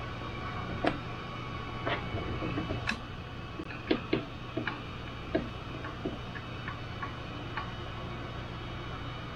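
Small clicks and taps of wires, a cable connector and tools being handled on a workbench, scattered irregularly and loudest about a second in and around four seconds in, over a steady low hum.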